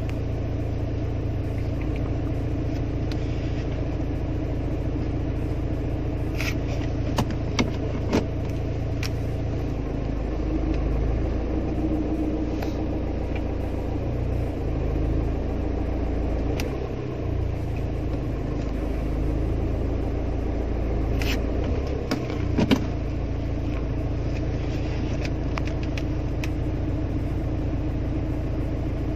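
Car engine idling steadily with the manual gearbox in neutral, heard around the gear lever, which is said to make a friction noise in the shift stick. A handful of sharp clicks come about a quarter of the way in and again about three quarters of the way in.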